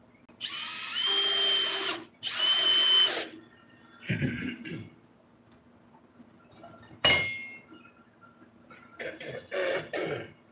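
Cordless drill driving screws into wooden trailer floorboards in two runs of about a second and a half each, its motor whining steadily. A single sharp knock follows a few seconds later.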